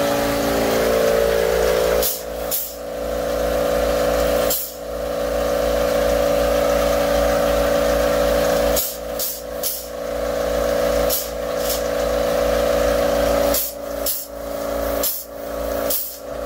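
Cordless epoxy dispensing gun's electric motor running steadily as it drives epoxy out of the cartridge, with several short breaks where it stops for a moment and starts again.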